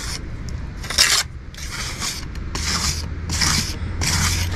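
Steel pointing trowel scraping fresh mortar in the corner joints of Thermalite block work, in about six short scraping strokes, over a low steady hum.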